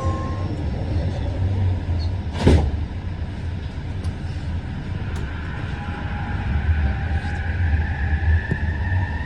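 Metro train running with a steady low rumble, one sharp knock about two and a half seconds in, and a thin whine that rises slowly in pitch over the last few seconds.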